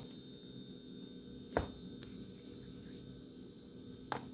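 Quiet room tone with a faint steady hum, broken by two short taps, about a second and a half in and near the end, from hands pinching off and rolling soft dough in a plastic bowl.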